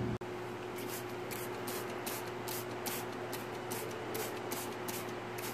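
Plastic trigger spray bottle being squeezed again and again, spritzing liquid pesticide in short hissing squirts, about three a second. A faint steady hum runs underneath.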